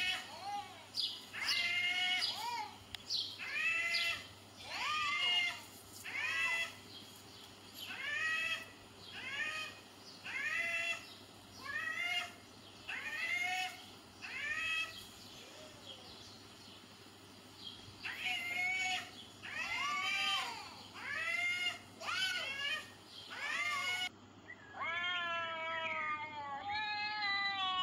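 Cat meowing over and over, a call about every second and a bit, each rising and then falling in pitch. After a short break, a run of closer-spaced meows, then one long, wavering yowl: the warning howl of a cat squared up against another cat.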